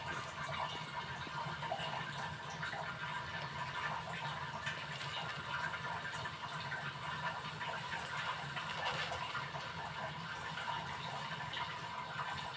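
Canned meat sizzling and bubbling steadily as it heats in its open tin over a gas burner, a constant fine crackle over the low hiss of the burner flame.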